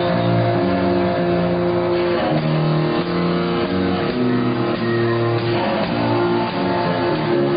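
Rock band playing live: guitars and bass holding chords that change every half second to a second.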